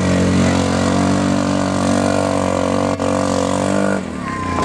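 ATV engine running at steady high revs as the four-wheeler churns through a mud pit, then easing off about four seconds in.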